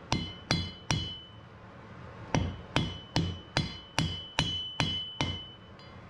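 Hand hammer striking a red-hot wrought iron axe blank on an anvil. There are three blows, a pause of about a second and a half, then eight more at a steady pace of about two and a half a second. Each blow has a short metallic ring.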